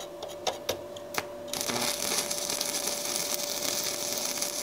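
Stick (SMAW) welding with a 7018 electrode on a Weldbull Miura 180 mini inverter welder at its maximum setting: a few sharp taps as the rod is struck, then about one and a half seconds in the arc catches and runs with a steady hiss.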